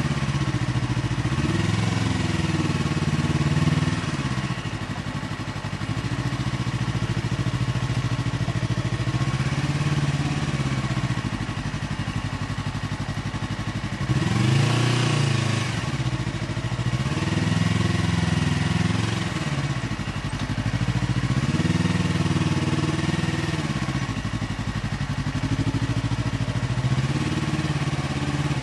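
Yamaha R3A's 321 cc parallel-twin engine through an SC Project aftermarket exhaust while riding, its note rising and falling over and over as the revs climb and drop through the gears. About halfway there is a louder swell.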